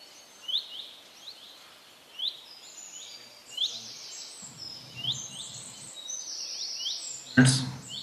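Small birds chirping in the background, many short high chirps coming irregularly, with a brief loud burst of noise near the end.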